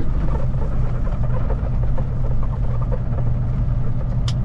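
Kenworth T880's Cummins diesel engine running, heard as a steady low drone from inside the cab, with a short sharp click near the end.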